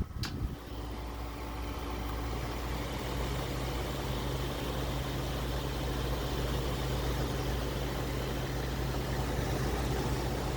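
Modified Toshiba 6,000 BTU window air conditioner with a scroll-cage blower wheel switching on with a click and a knock, then running with a steady low hum and air noise that builds over the first couple of seconds and holds.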